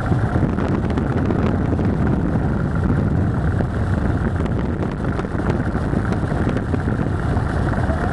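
Steady road and engine noise of a car driving, heard from inside the cabin, with some wind on the microphone.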